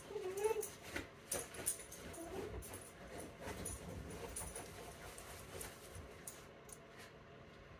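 A small dog gives a short whine, then digs and noses at couch blankets and cushions, with quick scratching and rustling of fabric, as it tries to bury a treat.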